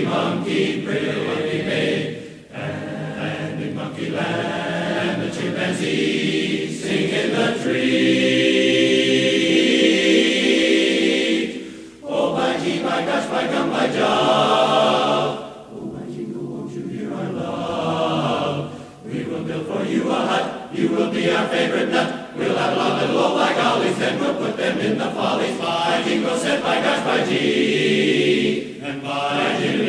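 Men's barbershop chorus singing a cappella in close harmony. Long chords are held, one from about 8 to 12 seconds, with short breaks between phrases.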